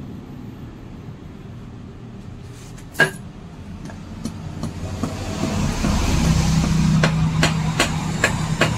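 A metal seal-driver tool set down onto a motorcycle front fork tube with one sharp clack about three seconds in, then a few lighter metallic clicks as it is worked on the tube. Behind them, a motor vehicle's engine hum comes up and grows louder from the middle on.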